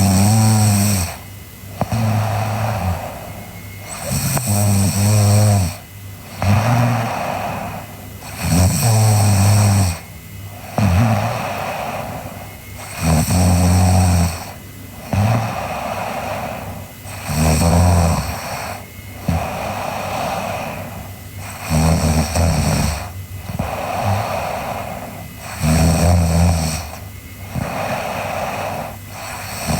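A sleeping girl snoring: a loud, low snore about every four seconds, seven in all, each followed by a softer breath.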